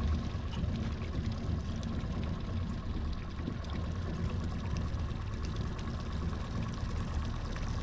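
Boat underway at trolling speed: an outboard motor running steadily with water rushing along the hull.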